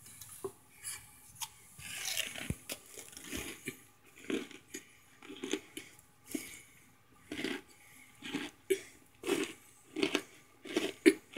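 Chewing on hard, crunchy chunks of microwave-baked cornstarch: a steady run of crunches at about two a second, after a few knocks and rustling in the first couple of seconds.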